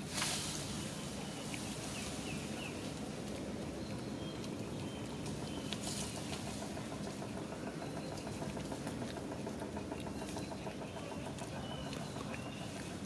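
Outdoor background: a steady low hum with faint, scattered short chirps and, around eight to ten seconds in, a brief run of rapid even pulses. A short sharp burst of noise comes at the very start and is the loudest thing.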